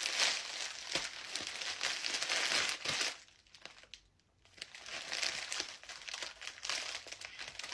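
Plastic poly mailer bag crinkling as it is squeezed and pulled at by hand, with a short pause about three seconds in before the crinkling starts again.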